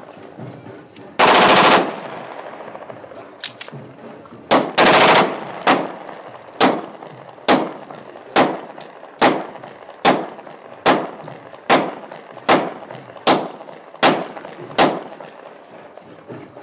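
Handgun fired into the air: two short rapid bursts of shots, then about a dozen single shots at a steady pace, a little over one a second.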